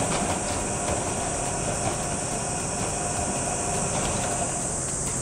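AS ONE PM-001 benchtop pot mill rotator running, its white pot turning on the drive rollers with a steady rumble and rapid faint clicking.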